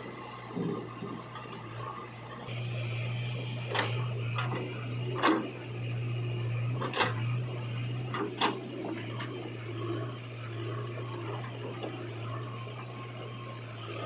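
Steady low machine drone, like a heavy machine's engine running. About five sharp knocks or clanks come between about four and eight and a half seconds in.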